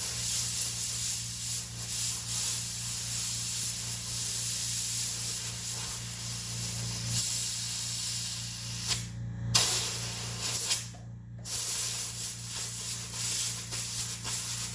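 A steady hissing spray that cuts off twice, each time for about half a second, a little past the middle, over a steady low hum.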